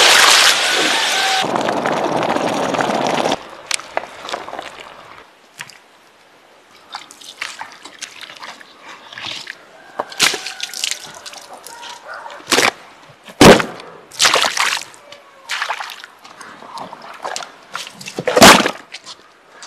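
Water poured over lumps of quicklime, a loud steady rush as the lime slakes and steams, cutting off suddenly about three seconds in. Then scattered wet splashes and slaps as a lime-soaked animal hide is worked, two of them loud, about halfway and near the end.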